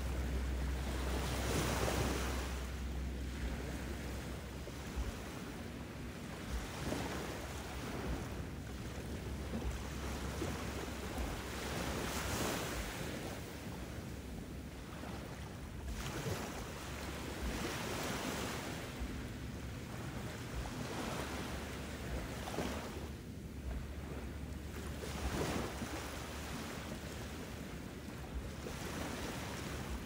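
Ocean surf: waves breaking and washing back, with a fresh swell of hiss every few seconds.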